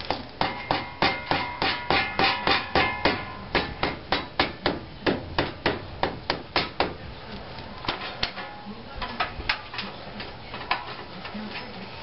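Rubber mallet tapping a tight-fitting Chevy Colorado wheel hub assembly into place, about three sharp taps a second for several seconds. The taps then turn sparser and lighter after about seven seconds.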